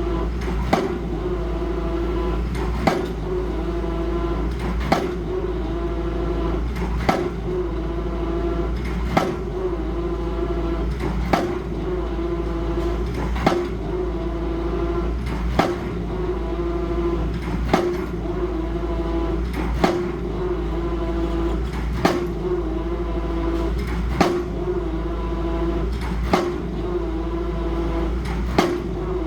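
A steady mechanical hum with a low rumble, with a sharp click repeating about every two seconds in a regular cycle.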